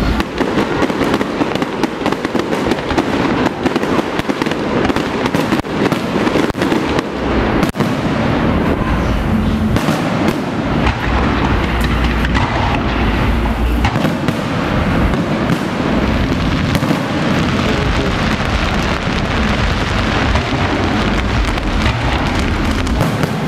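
Aerial fireworks show: a continuous dense crackle, with a few sharper bangs and deep booms from shells bursting overhead.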